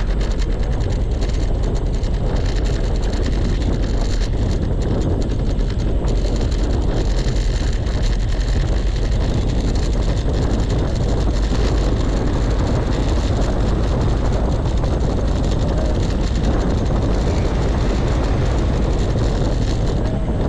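Steady wind rumble on a handlebar-mounted action camera's microphone, mixed with the road noise of an electric scooter being ridden.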